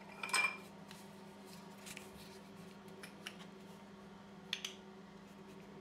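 Small plastic clicks and knocks as a toothpaste tube is pulled from a plastic tumbler of toothbrushes and handled at the cap. The loudest clatter comes just after the start, with a few lighter clicks later and a quick double click near the end, over a steady low hum.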